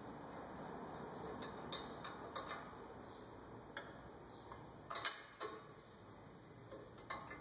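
A few scattered light metallic clicks and clinks of parts and hand tools being handled at a pickup's front brake hub, at uneven intervals, the loudest about five seconds in.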